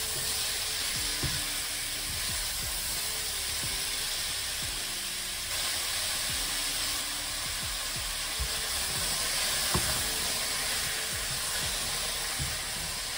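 Diced courgettes and onion sizzling steadily in hot oil in a stainless steel pan while being browned, stirred with a spatula that knocks lightly against the pan a few times.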